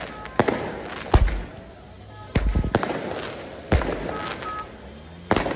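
Firecrackers and firework mortars going off in the street: about six sharp, loud bangs at uneven intervals, two of them with a deep boom. Short whistle-like tones sound between the bangs.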